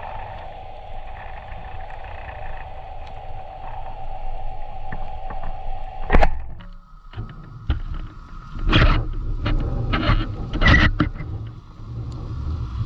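Underwater speargun fired at an amberjack: a sharp crack about six seconds in, after a steady underwater hum, followed by several loud rushing bursts and knocks as the shot fish struggles.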